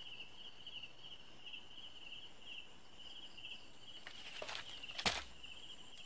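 Crickets chirping steadily, a pulsed trill about twice a second. About four seconds in, rustling and then a single sharp wooden knock as a slatted bamboo cage is set down over a duck.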